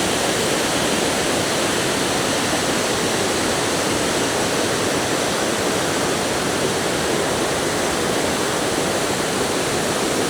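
A waterfall's loud, steady rush of water.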